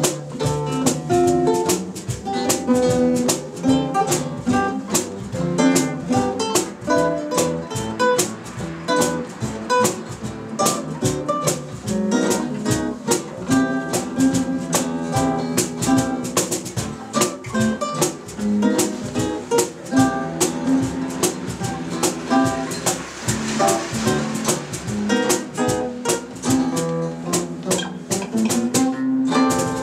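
Live instrumental trio of an archtop guitar, an acoustic-electric cutaway guitar and a violin-shaped electric bass, playing a quick run of plucked single notes over chords and a bass line. Near the end it settles on a held chord that rings on.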